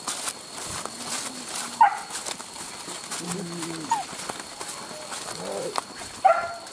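Several people and leashed dogs walking on a leaf-littered path: scattered soft footfalls. Three short, high calls that bend downward stand out, the loudest near the end, with two lower drawn-out calls in between.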